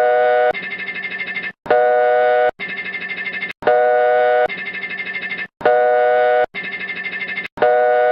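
Synthesized fan-made Emergency Alert System alarm tone repeating about every two seconds: a steady chord-like tone for under a second, then a rapidly pulsing higher tone, about a dozen pulses a second, for about a second, then a short break.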